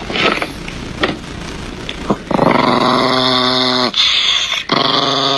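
A dog growling: a rough, rattling growl for about two seconds, then two longer, steadier pitched growls with a short break between them.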